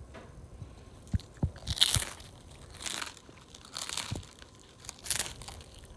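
Sauce squirted from a plastic squeeze bottle onto a plate: a handful of short, sputtering, crackly squirts, after a couple of soft knocks about a second in.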